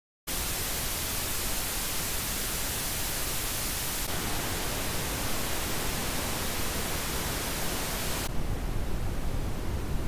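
Weather radio static: a steady hiss from dead weatherband channels that cuts in abruptly out of dead silence just after the start. Its tone shifts slightly about four seconds in and turns duller near the end as the tuner steps to the next dead channel.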